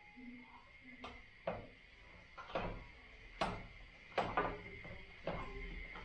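Spätzle maker's hopper sliding back and forth on its metal grater plate. It clacks in a series of sharp knocks, about one a second, as it is pushed along the track to press the dough through the holes.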